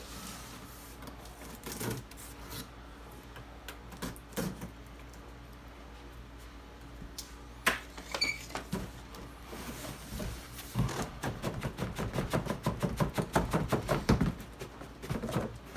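Packaging being handled: scattered knocks and rustles of cardboard, then a dense run of rapid crackling and rustling for about four seconds, starting about eleven seconds in.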